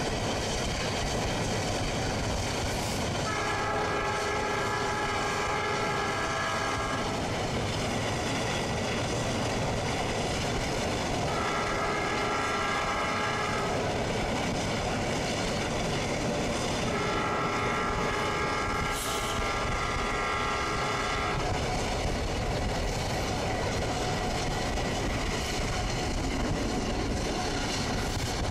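Diesel locomotive horn sounding several notes at once in three blasts, long, short, long, over the steady rumble and wheel clatter of a passing train.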